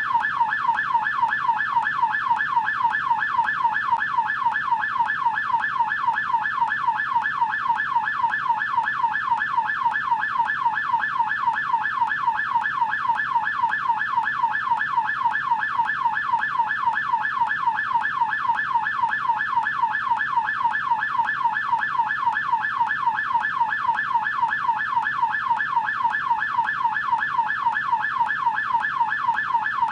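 US police car electronic siren in yelp mode: a rapid, steady warble, the pitch sweeping up and down several times a second without a break.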